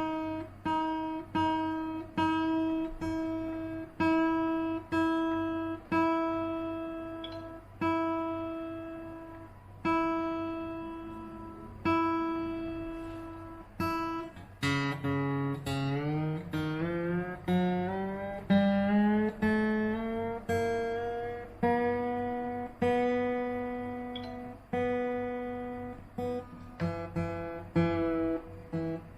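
Acoustic guitar fitted with an X2 Double pickup system, played solo with notes ringing out and decaying. For roughly the first half it repeats notes at about the same pitch; from about halfway a line of notes steps upward.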